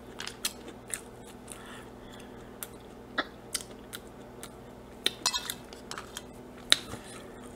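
A person chewing french fries, with scattered soft crunches and mouth clicks. A few clicks near the end as fingers pick more fries off the plate.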